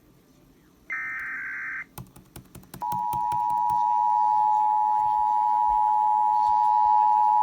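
Emergency Alert System signal: a one-second screechy digital data burst (the SAME header) about a second in, a few clicks, then the steady two-tone EAS attention signal (853 and 960 Hz) held for about five seconds. It is the alert tone that comes before the spoken message, here for a required monthly test.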